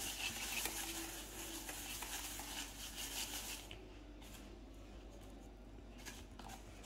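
Breadcrumbs rustling and scraping as a rice ball is rolled by hand through them in a plastic tray: a faint gritty scratching that dies down about three and a half seconds in, with a few light scrapes again near the end.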